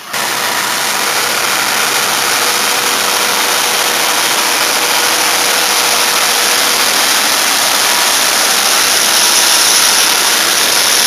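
Elgin Crosswind regenerative-air street sweeper running as it passes close by: a loud, steady rushing hiss with a faint whine under it.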